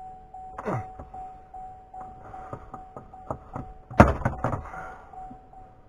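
Plastic dash trim bezel of a GMC Sierra being pried loose: its retaining clips creak and tick under the pry tool, then one clip lets go with a loud sharp snap about four seconds in. A steady high tone runs underneath.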